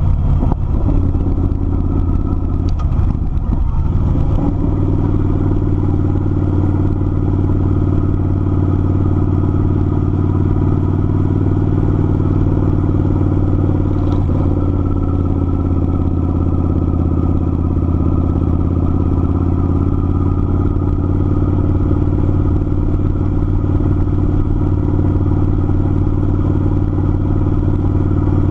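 Kawasaki Vulcan 900's V-twin engine running steadily on the road at cruising speed, its note wavering briefly a few seconds in.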